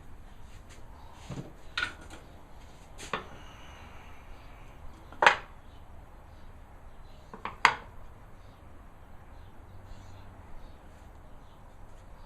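Wooden workpieces being handled and set together, knocking and clattering in four sharp knocks, the two loudest around the middle.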